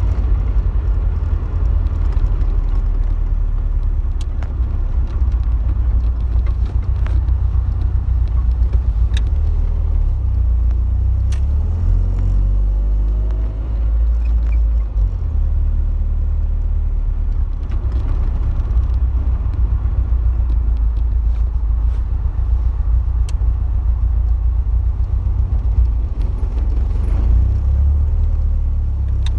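Open-top car driving at low speed, heard from the open cockpit: a heavy, steady low rumble of engine, road and wind, with the engine note rising for a moment about halfway through and a few small clicks scattered throughout.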